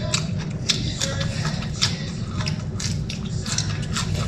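Close eating sounds: chewing and mouth smacks with many quick, sharp clicks as food is picked up and eaten by hand.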